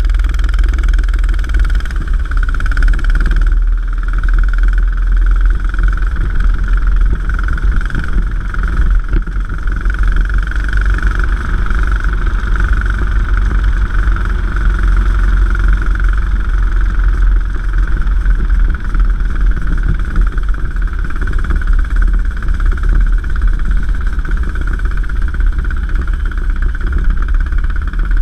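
Racing kart engine running steadily at low speed, heard from onboard the kart, with a heavy low rumble and a steady high whine.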